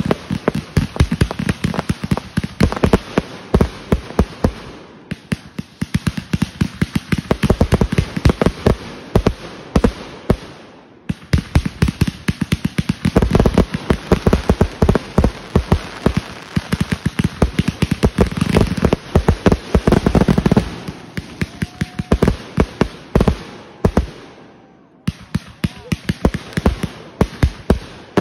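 Aerial fireworks firing in rapid volleys: a dense run of sharp shots and bangs, with brief lulls about five, eleven and twenty-four seconds in.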